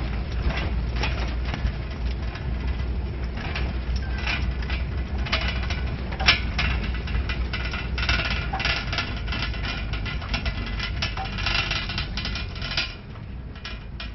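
Small open motor vehicle driving on a rough dirt road: a steady low engine rumble under constant rattling and clattering of the body, with one sharp knock about six seconds in. The noise drops quieter shortly before the end.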